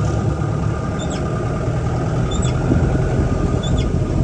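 Jeep engine running with road rumble, heard from inside the cabin. Short high chirps repeat about every second and a half.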